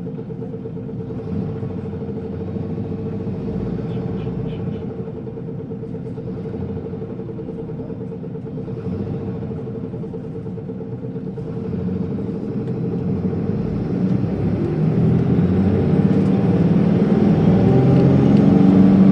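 Isuzu Erga city bus's diesel engine heard from inside the passenger cabin, running steadily at first. From about twelve seconds in it grows louder as the bus accelerates away.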